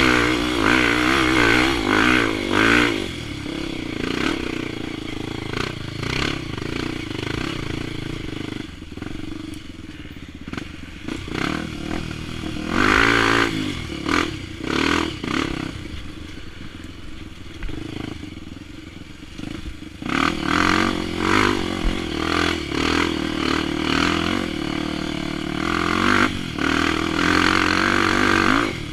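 Single-cylinder Honda XR 250 Tornado trail-bike engine, bored to 280cc with an aftermarket exhaust, under way with the throttle opening and closing: loud and rising and falling at the start, easing off to a quieter run with a brief burst of throttle midway, then loud again near the end.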